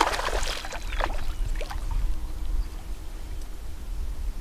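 Water lapping and splashing around a small fishing boat over a steady low rumble, with a few short splashy sounds in the first second or so.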